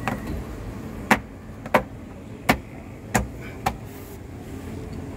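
Sharp plastic clicks and knocks, about six spread unevenly over a few seconds, from hands pressing and fitting the black plastic cover in a jet ski's engine bay.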